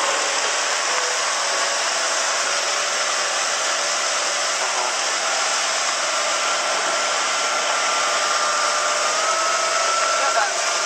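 Small motorboat running at speed: a steady rush of wind and water noise over the microphone, with the engine's faint whine underneath that rises slightly in pitch near the end.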